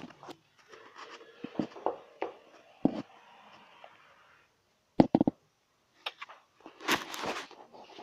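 Irregular handling noise: rustling, light clicks and knocks, then three sharp knocks in quick succession about five seconds in and a short scraping rustle near the end.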